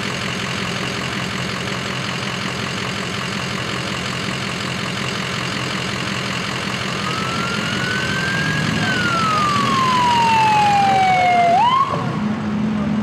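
Steady road traffic noise; from about seven seconds in, an ambulance siren grows louder with one slow wail, rising and then falling, then gives a short upward yelp and cuts off suddenly near the end.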